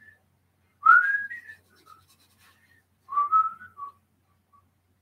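A man whistling softly to himself: a faint short note, then two short rising phrases about a second and three seconds in, with a few faint notes between and after.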